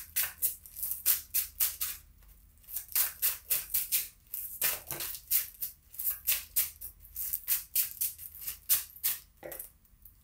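A tarot deck being shuffled by hand: quick runs of crisp card flicks, several a second, broken by short pauses, stopping near the end.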